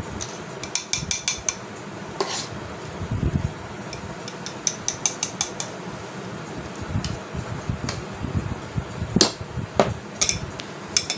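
Metal spoon clinking against a stainless-steel pot and a glass as thick custard is scooped into the glass, in several short runs of light, quick clinks.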